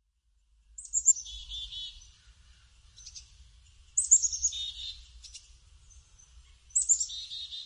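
Black-capped chickadee giving its chick-a-dee call three times, each a couple of high notes followed by a run of buzzy, lower repeated 'dee' notes, over a faint low rumble.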